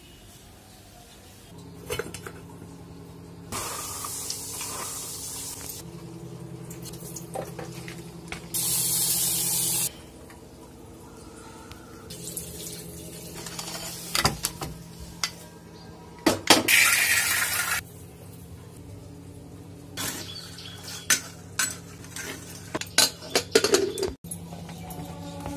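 Kitchen work: water pouring in three bursts of a second or two, amid clinks and knocks of steel pots, lids and utensils, over a low steady hum.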